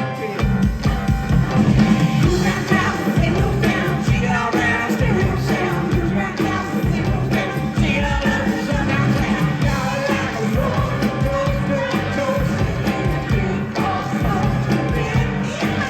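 Live rock band playing loud, with singing over guitars, bass and drums.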